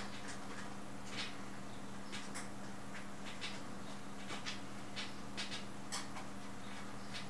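Screws being turned by hand into a computer power supply through the steel case back, giving short, faint squeaks and scrapes at irregular intervals over a steady low hum.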